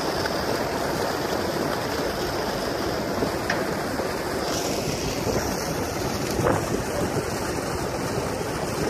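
Sea water rushing along the side of a moving ship's hull, with wind buffeting the microphone: a steady rushing noise.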